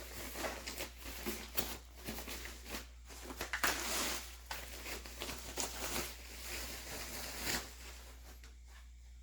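Packaging rustling and crinkling as a soundbar is unwrapped and handled, in an irregular run of crackles that peaks about halfway through and dies away near the end.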